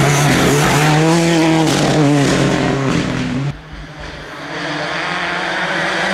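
Ford Fiesta R5 rally car's turbocharged four-cylinder engine at full speed, its pitch rising and falling as it revs. About three and a half seconds in the sound drops away suddenly, then builds again as the car approaches.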